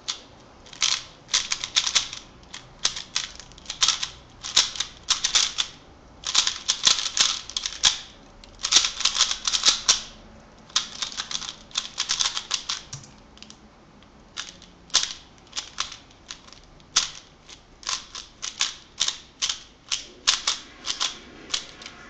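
Plastic 3x3 speedcube being turned fast during a timed solve: rapid clicking and clacking of the layers in quick bursts, with brief pauses between them.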